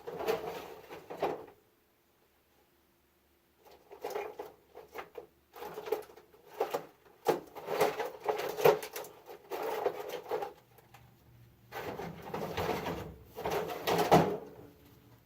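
Handling noises from fitting a replacement electrical plug with a screwdriver: irregular clicks, scrapes and rustles of small parts, in bursts a few seconds long, with a brief silence near the start.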